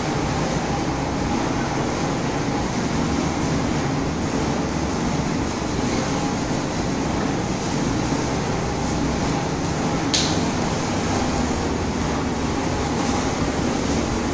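Steady background hum and hiss, with one short sharp click about ten seconds in.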